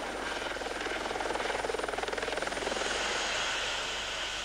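Light helicopter hovering low, its rotor beating in a fast, even pulse. The sound swells through the middle and eases off a little near the end.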